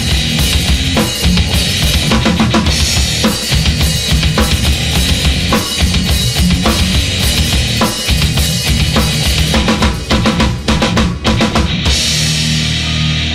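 Live heavy metal band playing loud, the drum kit pounding bass drum and snare under the band. Near the end comes a quick run of drum hits, then the drums stop and a held chord rings on.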